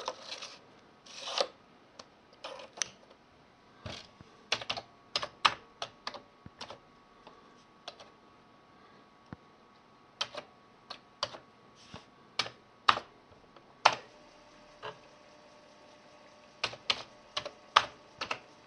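A floppy disk sliding into a Commodore 1541-II drive with a short scraping sound in the first second or so. Then irregular single keystroke clicks on a Commodore 64 keyboard as a disk command is typed.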